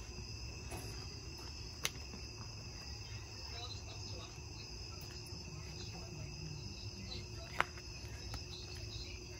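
Crickets chirring in a steady, faint chorus, with two brief sharp clicks, about two seconds in and again past seven seconds.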